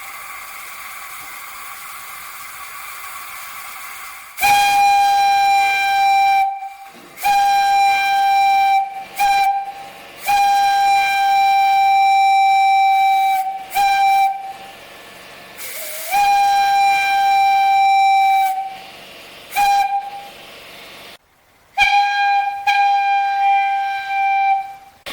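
Antique Lunkenheimer 2-inch single-chime steam whistle blown on compressed air: about four seconds of air hissing, then about nine loud blasts on one steady note, some long and some short, with a softer hiss between them.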